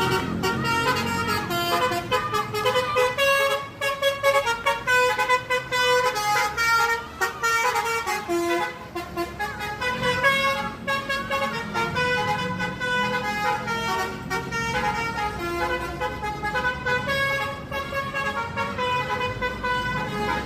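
Bus 'telolet' multi-tone horn playing a tune of quick, stepped notes, with a low rumble underneath.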